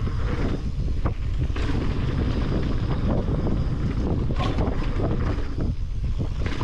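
Wind rushing over an action camera's microphone on a mountain bike rolling fast down a gravel trail: a steady, heavy low rumble, with scattered short clicks and rattles from the tyres and bike over the loose surface.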